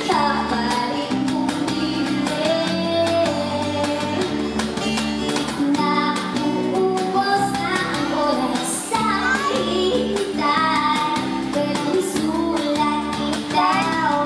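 Live acoustic band: a woman singing into a microphone over strummed acoustic guitar and electric bass.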